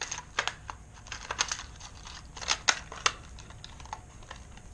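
Hard plastic fishing-lure packaging being handled: irregular sharp clicks and crinkles, bunched in a few short flurries.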